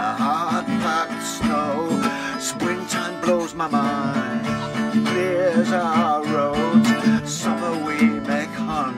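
A man singing in long wavering notes over a strummed acoustic guitar.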